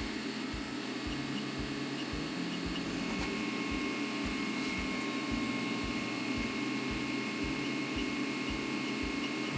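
Athorbot Buddy Couple dual-extruder 3D printer running: a steady fan whir and hum, with irregular short low knocks underneath from the moving axes.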